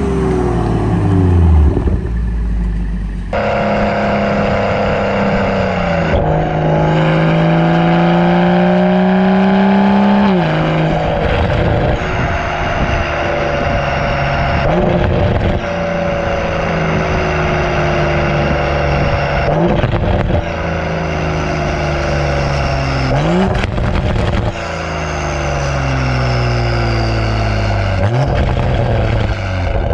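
2021 Toyota GR Supra 3.0's turbocharged B58 inline-six, breathing through an MXP catted downpipe and the stock catback exhaust. At first the car drives past with its note falling away. After about three seconds the exhaust is heard up close at the tailpipe while the car is driving, the engine note rising and falling with the throttle and jumping sharply in pitch several times.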